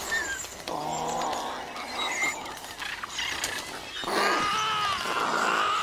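Film sound effects of a pack of Compsognathus attacking, with many overlapping chirping and squealing calls, louder again from about four seconds in.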